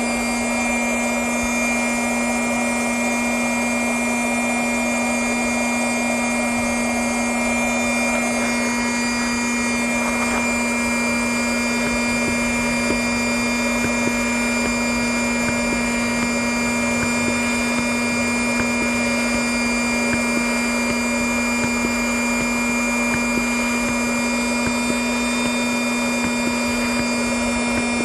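Small electric inflatable-boat air pump running with a steady hum and rush of air while it inflates a boat chamber. The chamber seems to have stopped firming up, as though the pump has reached the most pressure it can give.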